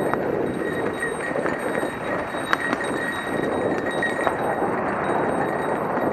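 Mountain bike rolling over a rough trail: continuous tyre crunch and rattling of the bike, with many small clicks and a sharper knock about two and a half seconds in.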